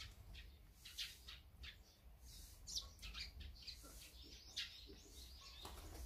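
A flock of azure-winged magpies giving short, faint calls, a few each second, with one higher call sliding downward about two and a half seconds in.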